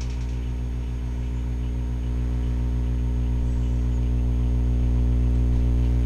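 Microwave oven running on high, a steady electrical hum that grows slightly louder about two seconds in.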